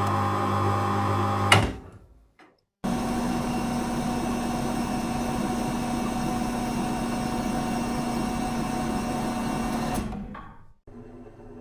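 A machine running with a steady hum stops with a sharp click about a second and a half in. After a short silence a different machine starts abruptly and runs steadily, a constant hum under a noisy whir, then fades out near the end, and a quieter steady machine sound follows.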